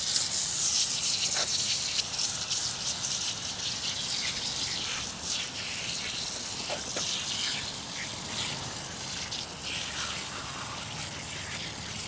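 Hand-pump foam sprayer hissing steadily as it sprays foam onto a car wheel, slowly getting quieter.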